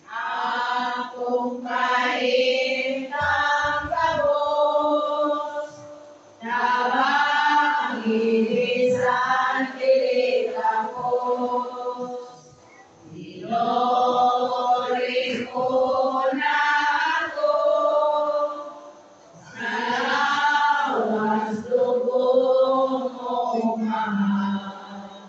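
Voices singing a hymn, in four long phrases with short breaths between them.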